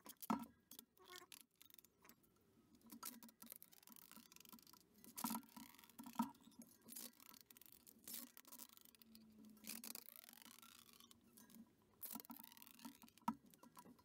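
Faint crackling and rustling of WTB tubeless rim tape being unrolled from its roll and pressed into a mountain-bike wheel rim, with scattered light clicks from hands handling the wheel.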